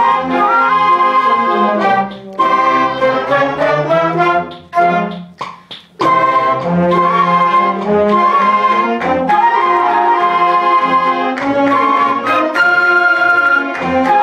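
A school concert band of brass and woodwinds playing sustained chords together. The band breaks off briefly about two seconds in, thins out almost to a pause around the middle, then comes back in full.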